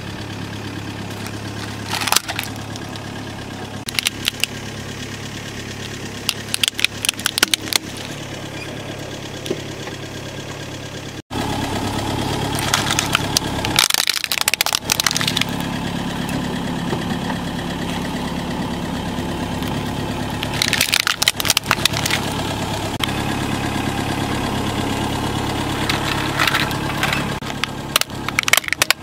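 Car engine idling with a steady low hum while the tyre rolls over hard plastic toys, crushing them in several separate bursts of cracking and snapping a few seconds apart. The engine hum cuts out for an instant about eleven seconds in and comes back louder.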